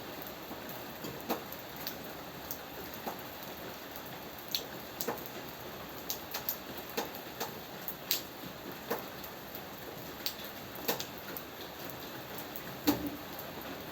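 Steady rain hiss with scattered, irregular louder drops striking a surface, one sharper drop a little before the end.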